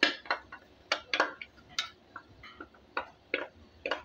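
Wooden spatula knocking and scraping against a bowl and pan rim as spiced yogurt is scraped into frying chicken: a string of sharp, irregular clicks, about three a second.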